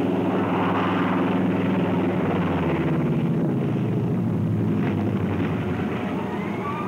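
A Vought F4U Corsair's Pratt & Whitney R-2800 radial piston engine drones steadily as the fighter comes in to land on a carrier deck. Its pitch drops slightly about halfway through.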